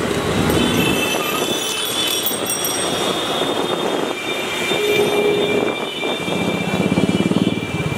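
Busy street traffic noise with vehicle horns. A short horn note sounds about five seconds in, and a fast-pulsing engine sound comes near the end.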